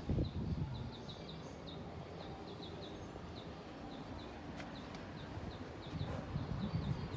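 A small bird chirping over and over in short, high, falling notes, a few a second, over a low, uneven outdoor rumble, with a few bumps near the start and again near the end.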